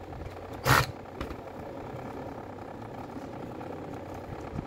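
A sharp, brief scrape about a second in, followed by a light click, from a steel screwdriver working at the base of a Makita BO5030 orbital sander during disassembly, over a steady low hum.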